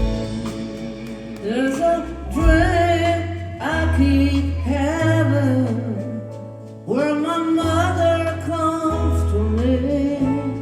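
A live rock band playing a slow song, with a singer holding wavering sung phrases over guitar and held bass notes.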